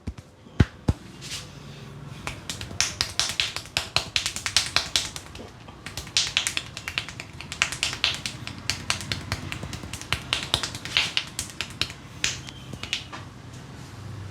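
Sharp snapping and cracking clicks of a barber's head massage, fingers snapping and cracking against the scalp and hair. A couple of single snaps at first, then quick, irregular runs of many clicks a second.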